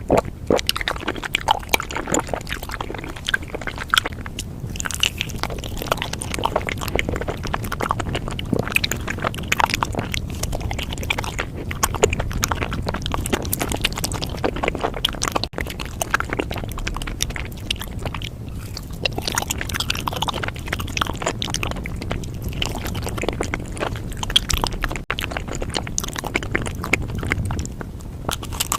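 Close-miked eating: chewing with wet mouth sounds and many small clicks.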